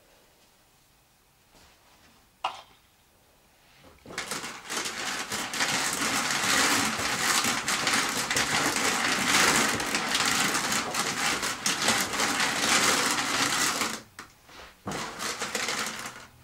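Hand-cranked drum carder turning, its carding-cloth teeth brushing black and white wool onto the big drum. It makes a dense scratchy whirring that starts about four seconds in and stops about ten seconds later, with one short burst more near the end.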